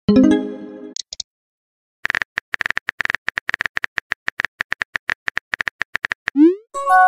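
Texting-app sound effects: a short message chime at the start, then rapid phone-keyboard key clicks for about four seconds as a reply is typed. Near the end come a quick rising send swoosh and another chime as the message posts.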